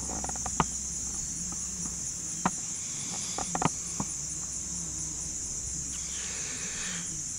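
Insects trilling steadily, high-pitched and evenly pulsing, with a few sharp clicks in the first four seconds.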